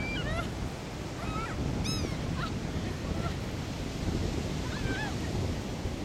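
Seagulls calling, a string of short arching cries, one louder call about two seconds in, over a steady rush of surf and wind.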